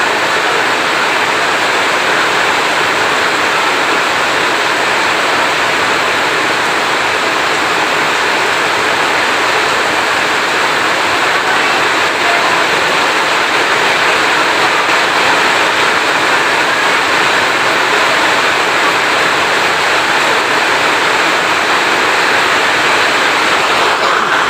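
Heavy rain falling in a steady, dense hiss, with no thunder.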